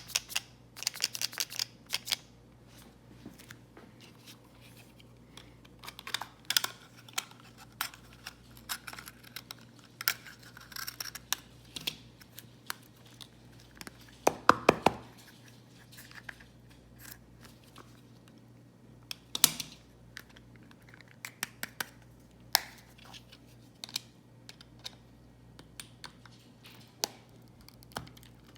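A plastic K-cup coffee pod being handled, shaken and torn open: irregular clicks, crackles and rattles, with the loudest cluster about halfway through.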